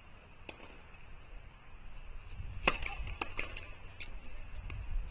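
Tennis rally on a hard court: several sharp pops of racquets striking the ball and the ball bouncing, the loudest about halfway through and another near the end.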